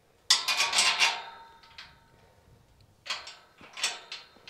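Tube-steel gate clanking and rattling against its hinge hardware as it is positioned: a loud burst of metal rattles with a ringing tone, then a few lighter clanks about three seconds in.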